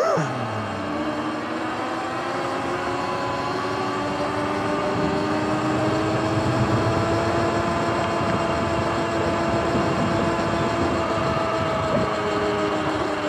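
Sur-Ron electric dirt bike's motor and drivetrain whining, the pitch rising as it picks up speed, holding steady, then easing down near the end, over a steady rush of wind and tyre noise. A brief knock comes near the end.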